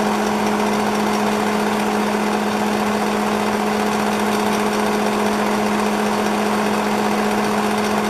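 Gold 'N Hot Elite bonnet hair dryer running on its low fan and low heat settings: a steady rush of air over a constant low motor hum.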